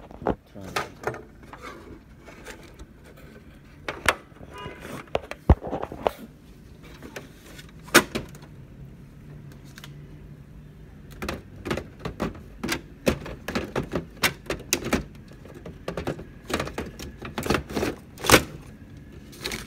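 Irregular plastic clicks and knocks from an HP Laser MFP laser printer's parts being handled. They come thicker in the second half, and the loudest knock falls near the end as a hand works the toner cartridge.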